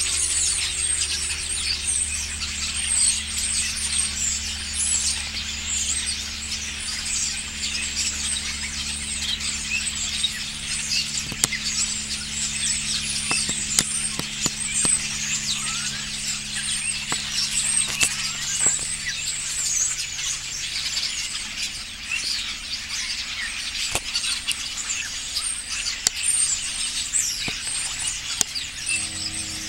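A flock of common starlings chattering together in a tree: a dense, unbroken mass of overlapping squeaky whistles, chirps and clicks.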